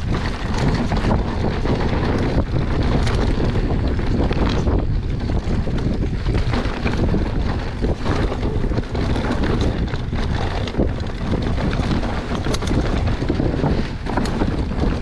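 Wind buffeting the camera's microphone over the rumble and rattle of a mountain bike descending a dirt singletrack, with frequent short clicks and knocks as the tyres and frame go over roots and stones.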